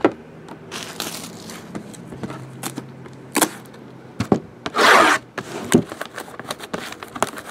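Cards and their plastic and cardboard packaging being handled: rubbing, scraping and crinkling with scattered clicks, loudest as a rustle about five seconds in.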